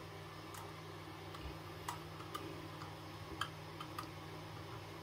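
Faint, sharp clicks and taps, about five spread across a few seconds, as a grip panel is handled and fitted onto a Ruger P94 pistol frame.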